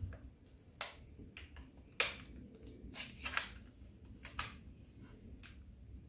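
A string of separate sharp clicks and light knocks as a pneumatic staple gun and its packaging are handled. The loudest knock comes about two seconds in.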